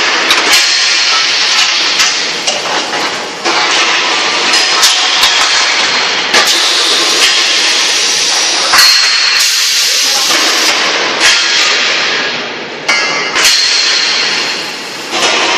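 Steel tubes clanking and knocking against each other and the machine's steel frames as an automatic tube packing and bundling machine handles a bundle, over a loud, steady mechanical din.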